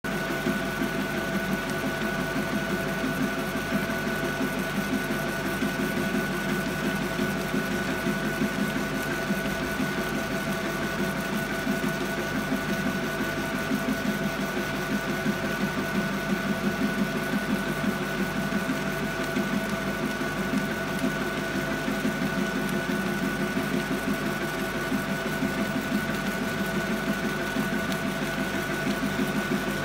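Argus CO2 laser engraver raster-engraving wood: the laser head's motor-driven carriage shuttles rapidly back and forth along the gantry, making a fast, steady, even rattle like a sewing machine, over a steady high hum.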